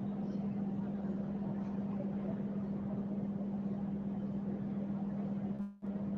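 A steady low hum over a faint hiss, with the hum cutting out for a moment near the end.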